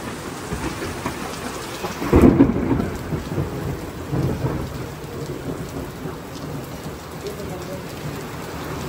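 Steady rain falling, with a loud low rumble about two seconds in and a smaller swell a couple of seconds later.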